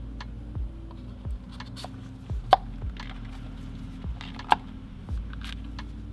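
Background music with sustained low notes and a slow, deep beat, with a few sharp clicks over it; the two loudest clicks come about two and a half and four and a half seconds in.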